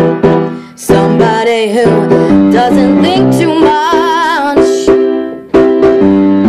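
A woman singing with vibrato over piano accompaniment, the chords struck in a steady rhythm.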